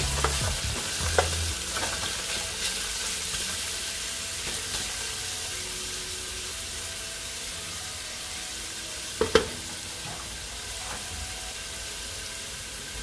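Julienned carrots and ginger sizzling steadily in hot coconut oil in a non-stick wok, the hiss easing slowly. A wooden spatula stirs and scrapes the pan in the first couple of seconds, and there is one sharp knock about nine seconds in.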